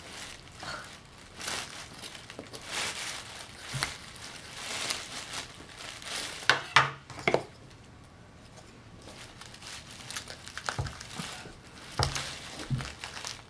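Crinkling, rustling and tearing as a sticky parami (paramita) fruit is pried and pulled apart with gloved hands, the fruit hard to open. A few sharp clicks or knocks come about six to seven seconds in and are the loudest part.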